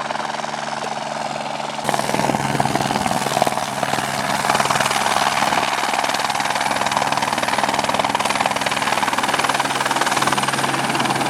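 Helicopter's engine and rotors running steadily; about two seconds in the sound changes abruptly to a louder, hissier steady noise.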